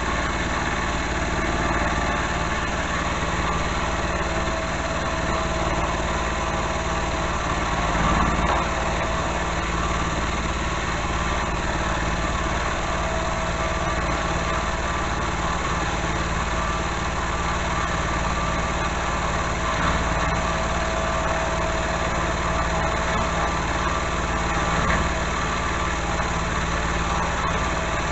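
Milling machine running steadily under power feed, a constant motor hum with a faint steady whine, as it takes a light pass on steel stock.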